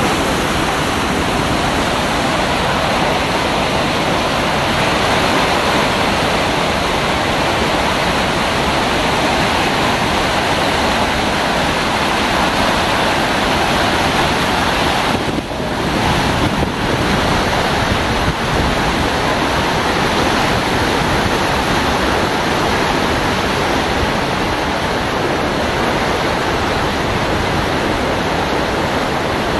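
Loud, steady rush of whitewater rapids on a fast mountain river, with a brief dip about halfway through.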